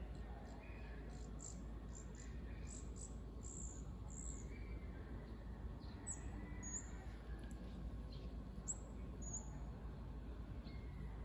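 Guaiabero, a small Philippine parrot, giving a series of short, very high, thin chirps, many in the first four seconds and scattered after, over a steady low rumble.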